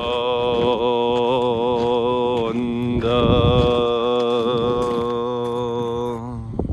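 A single voice chanting a long held note, like a mantra, with a short break for breath about two and a half seconds in before the note resumes and then stops near the end.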